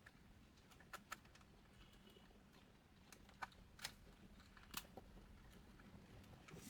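Near silence: faint room tone with a handful of small, scattered clicks and taps from printer parts being handled.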